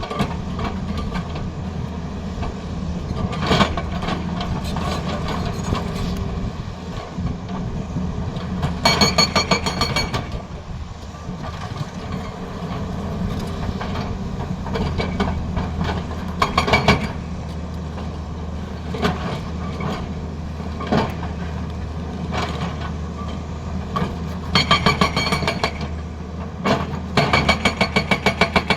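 Tata Hitachi excavator's diesel engine running steadily, with several short bursts of rapid hammering from its hydraulic breaker and a few single knocks between them.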